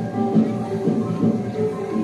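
Background music: a light track of short, plucked-sounding notes over a steady beat.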